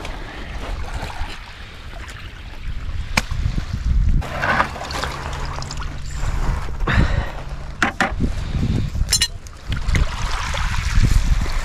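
Rumbling wind and small waves washing on a pebble shore, with several sharp clicks and rustles as fish are handled on the stones. A faint low hum runs through the middle few seconds.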